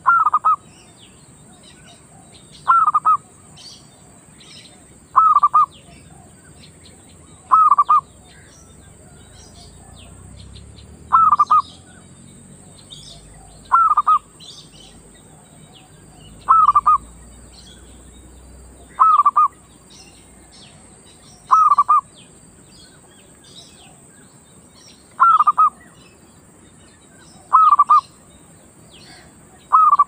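Zebra dove calling: a short cooing phrase repeated at a steady pace, about once every two and a half seconds. Faint high chirps of small birds come in between the calls.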